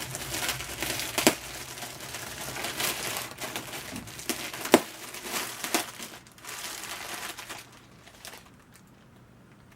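Packaging crinkling and rustling as items are handled and unwrapped, with a few sharp clicks among it; it dies away about two seconds before the end.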